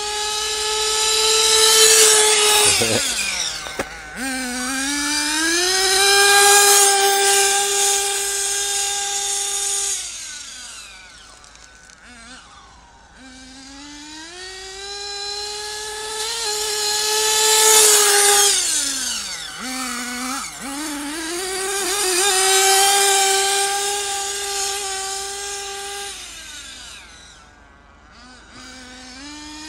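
HPI Trophy 3.5 RC car's small two-stroke nitro engine running at high revs on two high-speed passes. Each time the high-pitched whine grows loud, its pitch drops and climbs back (about three seconds in, and again near twenty seconds), then it holds a high steady note while fading into the distance.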